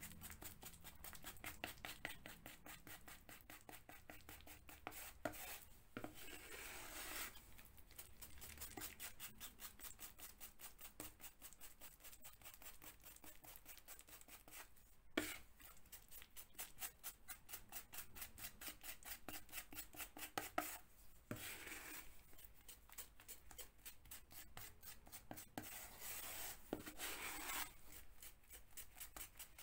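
Metal filling knife scraping and slapping through a stiff mix of Polyfilla filler on a mixing board: faint, quick repeated strokes as the filler is mixed thoroughly, with one sharper knock about halfway through.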